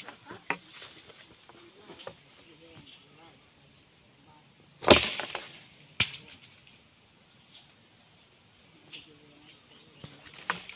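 Bamboo harvesting pole with a small knife tied to its tip, pushed into the branches of a jengkol tree: a few sharp knocks and cracks, the loudest a brief crack with rustling about five seconds in, another sharp snap a second later and a few more near the end, over a steady high insect drone.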